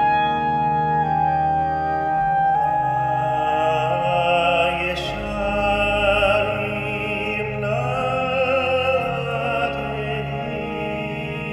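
Synagogue liturgical music: a clarinet melody over sustained organ chords, then a cantor's operatic tenor voice enters a few seconds in, singing with vibrato over the organ.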